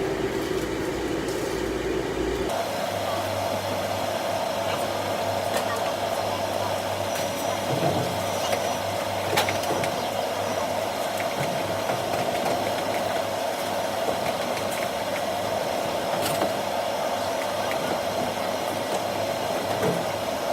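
Steady mechanical drone, like a fan or motor running, whose pitch steps up about two and a half seconds in, with a few faint clicks over it.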